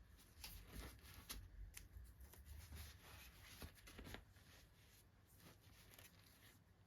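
Faint handling sounds of doll packaging being unboxed: soft rustles and light clicks, busier for the first four seconds and then sparser.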